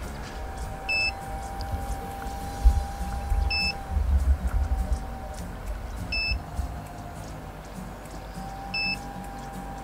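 Short electronic beep repeating evenly about every two and a half seconds from a bait boat's remote handset, over low rumble.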